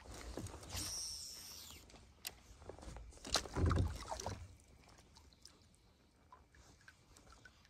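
Water splashing and gear knocking around a kayak as the paddle and fishing rod are moved, loudest a little over three seconds in. Afterwards only faint, scattered light ticks of a fishing reel being wound.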